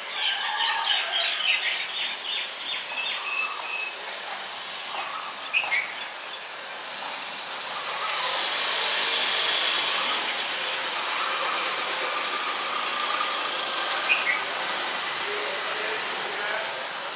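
Small birds chirping in quick repeated notes for the first few seconds. About seven seconds in, a steady rushing noise of a passing vehicle swells up and holds, with a few more bird calls over it.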